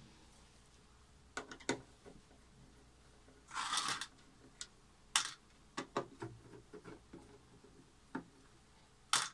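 Bottom cover of an Onkyo A-9711 amplifier being unscrewed and lifted off: scattered clicks and knocks of the screwdriver, screws and rubber feet, with a brief scraping rustle a few seconds in and a sharper knock near the end.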